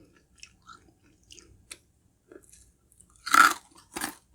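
Close-up mouth sounds of chewing crunchy honeycomb candy: faint small wet clicks at first, then a loud crunch about three seconds in and another about a second later.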